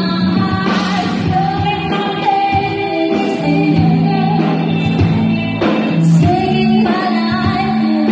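Live rock band playing, with female vocals sung through microphones over electric guitar, bass guitar and drum kit. The sung notes are long and held, and cymbal crashes come about a second in and again a little before the end.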